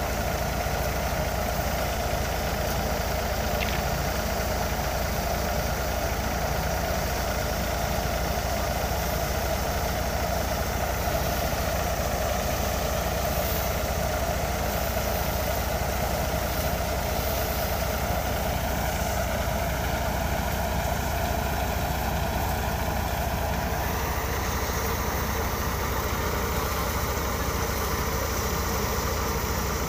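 Tractor's diesel engine running steadily under load, driving a crop thresher: a continuous mechanical drone of engine and threshing machinery.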